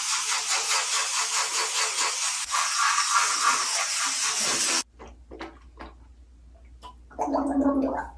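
Tap water running hard into a bathroom sink while teeth are brushed, cutting off suddenly about five seconds in. A few faint clicks follow, then a short gargle near the end.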